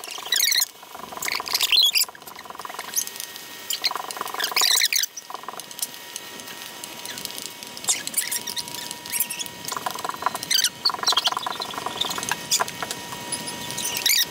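Bacon frying in a skillet, its fat crackling, spitting and popping in quick irregular crackles, over a faint steady high whine.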